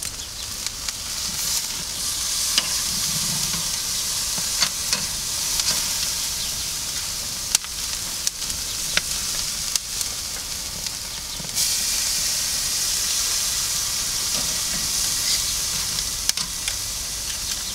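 Beef flank steaks sizzling as they sear on the hot grate of a kamado charcoal grill, with a few sharp clicks and taps from the metal tongs as the steaks are turned. The sizzle grows louder about two-thirds of the way through, when fresh meat surface meets the grate.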